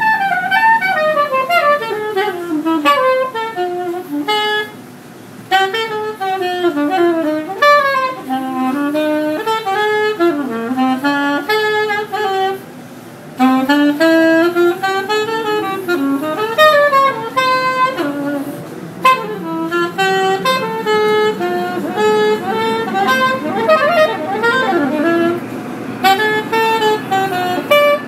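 Soprano saxophone played solo, a jazz melody running in flowing phrases with short breaks between them.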